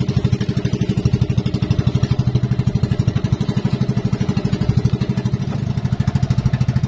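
Engine of a motorized outrigger boat running steadily under way, with a fast, even pulsing beat.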